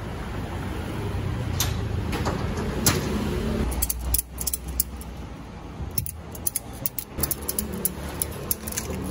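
A low rumble for the first few seconds, then rapid, irregular metallic clicking and rattling of a ratchet tie-down strap buckle being worked to tighten the strap.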